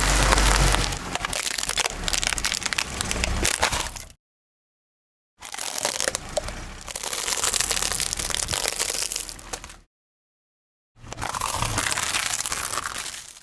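A car tyre rolling over and crushing objects: a dense, rapid run of cracking and crunching. It comes in three separate stretches, broken twice by sudden dead silence.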